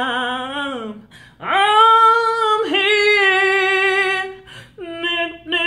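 A woman singing without accompaniment: a held note that wavers and falls away about a second in, then after a short break a long note that swoops up and is held with vibrato, followed by a few short sung notes near the end.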